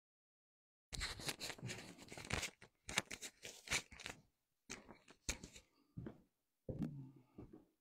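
Rustling, crackling handling noise close to the microphone, coming in irregular bursts that start about a second in after silence.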